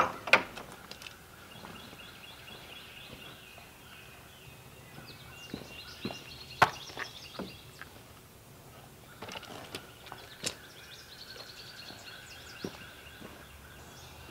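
Handling knocks and clunks: a wooden shed door being unlatched and opened, then chainsaws being set down on a wooden sawhorse table, the sharpest knocks right at the start and about six and a half seconds in. Songbirds chirp repeatedly in the background.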